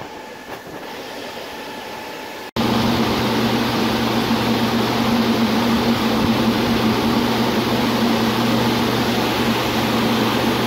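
Aqua Vulcan 7.5 kW wastewater aerator running in an aeration tank: a steady rush of churning, frothing sewage water. About two and a half seconds in it jumps suddenly much louder, heard right beside the aerator, with the electric motor's steady low hum over the water.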